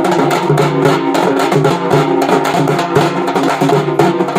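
Folk drumming on two-headed barrel drums (tappetlu) beaten with sticks, a fast, dense stream of strokes, over a steady pitched drone.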